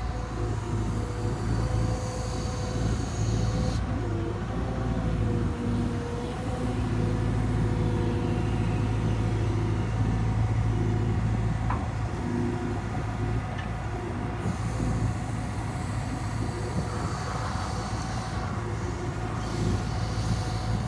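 Wheeled excavator's diesel engine running steadily, with a constant hydraulic whine and shifting hydraulic tones as the boom, tiltrotator and bucket work through gravel.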